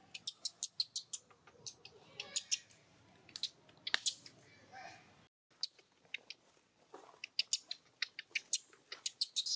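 Irregular sharp clicks and crackles, several a second, with a brief break about five seconds in.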